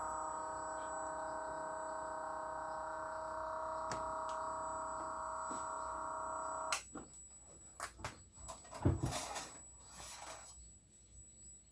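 Battery-powered oil transfer pump motor running with a steady whine, pumping fresh oil into a diesel engine, then switched off abruptly about seven seconds in. Scattered clicks and handling knocks follow, with one louder thump.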